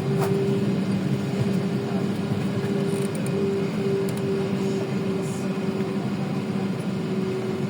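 Steady drone of an airliner's jet engines and cabin airflow heard from inside the cabin, with a constant humming tone, as the plane rolls on the ground after landing.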